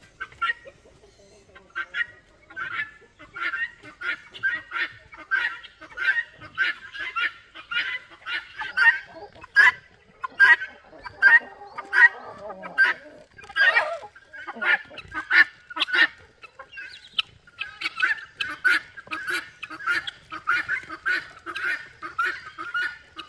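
Helmeted guineafowl calling: a continuous run of short, repeated cries, about two or three a second.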